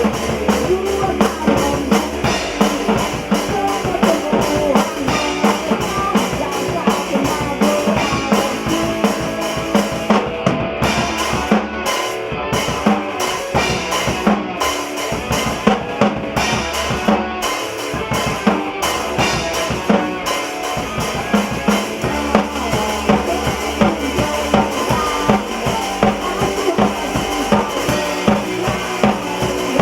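A band playing an instrumental passage live, with a full drum kit (bass drum, snare and rimshots) driving it. Around the middle the music breaks off briefly several times in a stop-start figure before the full groove returns.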